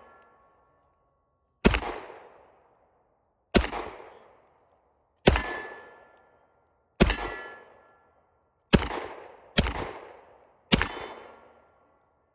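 Glock pistol fired seven times, single shots roughly two seconds apart at first and closer together near the end, each shot followed by a ringing tail that dies away.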